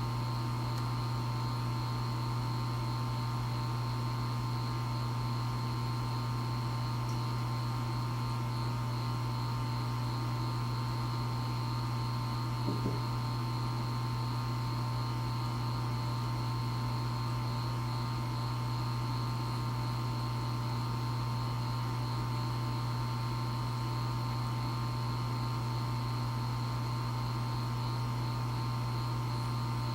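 EcoTech Vortech MP60 aquarium propeller pump running on constant mode: a steady low hum with higher whining tones over it. This is the noise the owner reports as a problem with the pump.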